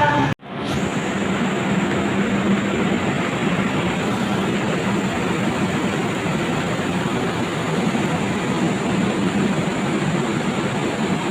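Train running on the rails: a steady, even rumble of wheels and carriage noise with a low hum. The sound cuts out briefly about half a second in, then resumes.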